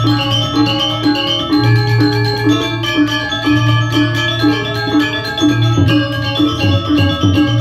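Balinese gamelan playing: bronze metallophones striking quick interlocking notes in a steady pulse, over a deep low tone that swells about every two seconds.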